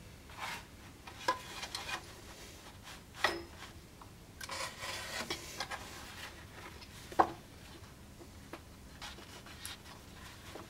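Leather being handled, pressed and rubbed against a wooden board, with scattered scrapes and rustles and a longer stretch of rubbing about halfway through. Three sharp taps stand out, the loudest about seven seconds in.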